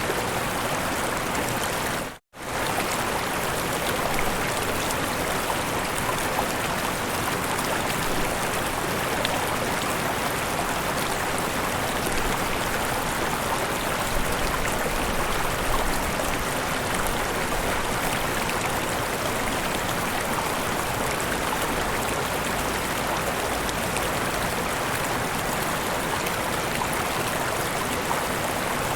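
Mountain river running over small waterfalls: a steady, even rush of water, broken once by a split-second dropout about two seconds in.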